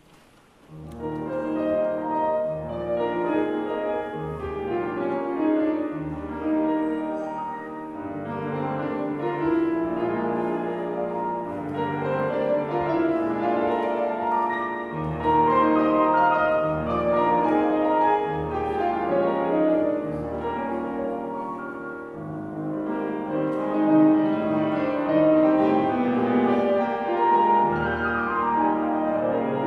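Solo grand piano playing a classical piece, starting out of near silence about a second in, with full chords over low bass notes.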